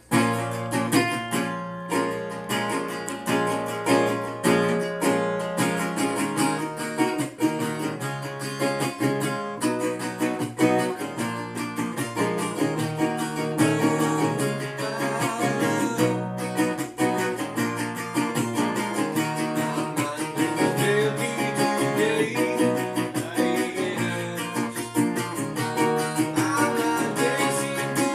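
Resonator guitar with a metal cone cover played in a steady acoustic folk pattern. A man's voice comes in singing over it about halfway through.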